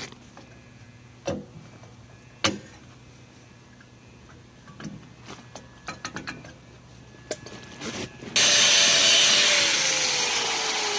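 A few sharp knocks and clicks from hands working the rear drum brake assembly. Then, about eight seconds in, an angle grinder starts up and grinds the worn lip off the brake drum, its whine falling steadily in pitch as it bears down.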